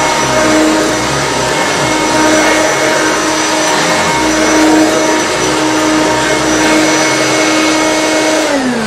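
Hoover Turbopower Freedom upright vacuum cleaner running steadily on speed 2 while sucking up fine flour, which is clogging its filter. Near the end the motor is switched off and winds down, its pitch falling.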